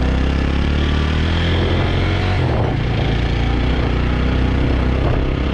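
Motorbike engine running steadily while riding.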